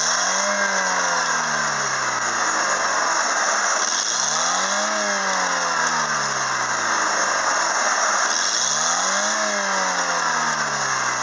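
Chevrolet Aveo 1.4-litre F14D3 four-cylinder engine revved up three times, about every four and a half seconds: each time the pitch climbs quickly, then sinks slowly back toward idle. A steady high-pitched whine runs over it throughout.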